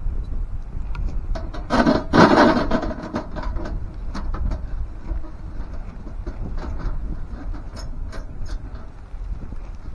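Wind buffeting the microphone with a steady low rumble. Scattered light clicks and knocks run through it, and a louder scraping rustle comes about two seconds in.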